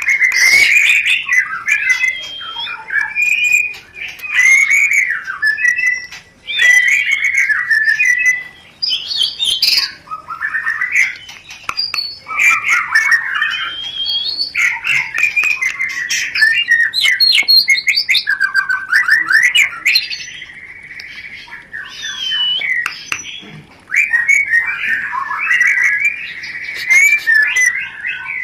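White-rumped shama (murai batu) in breeding condition singing without pause: loud, varied whistled phrases with quick up-and-down glides, broken by rapid chattering runs and harsh calls.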